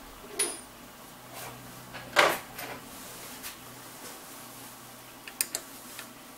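Scattered sharp metallic clicks and knocks of tools being handled at the machine, the loudest about two seconds in and a quick cluster of three near the end, as a hex key is brought to the screw holding the freshly cut gear on its arbor. A faint steady low hum runs underneath.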